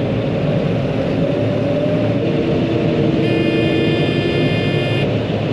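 John Deere 9500 combine running steadily, with a high electronic warning beep starting about three seconds in and lasting nearly two seconds: the combine's low engine speed alarm, set off by running a little too fast uphill.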